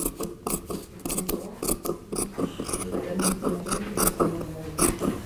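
Large tailor's shears cutting fabric along a pattern edge, the blades resting on the table: a steady run of snipping strokes, about two or three a second.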